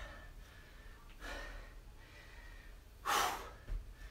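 A man breathing hard during exercise: a soft exhale about a second in, then a louder, breathy exhale about three seconds in.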